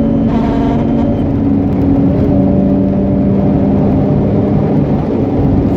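Mazda RX-8's twin-rotor Renesis rotary engine running at a steady pace, heard from inside the cabin with road noise.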